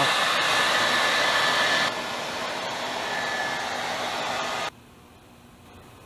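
Handheld blow dryer running with a steady whine in its airflow. About two seconds in it gets quieter, and near the end it switches off suddenly.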